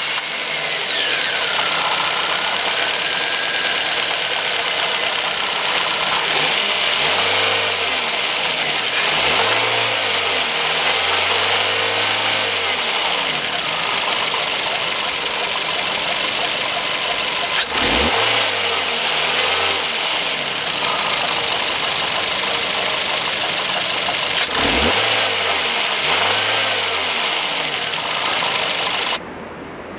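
2015 FAW Oley's four-cylinder engine running in the open engine bay and revved in short blips, the pitch rising and falling several times in three groups between stretches of steady running.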